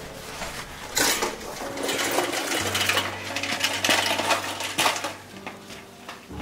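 Old steel bicycle rattling and clattering as it is wheeled over gravel, its metal parts jingling in a dense run of clicks for about four seconds before it is let fall.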